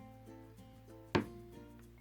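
Light background music, with a single sharp click about a second in.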